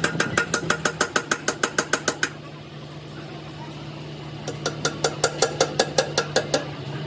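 Rapid, evenly spaced clicking, about seven clicks a second, in two runs with a pause of about two seconds between them, over a steady low hum.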